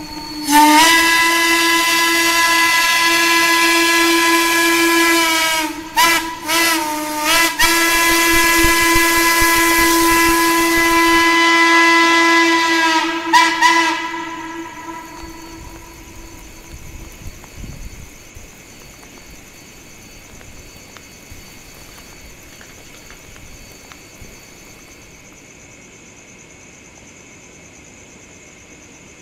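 Norfolk & Western 'hooter' single-note steam whistle blowing. It gives a long blast, breaks off twice around six to seven seconds with its pitch dipping, then holds a second long blast that ends in a couple of quick stutters about fourteen seconds in. After that only a faint steady hiss remains.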